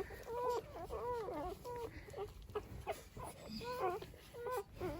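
Day-old Dalmatian puppies whimpering and squealing: a string of short, squeaky cries that each rise and fall in pitch, with a brief lull around the middle.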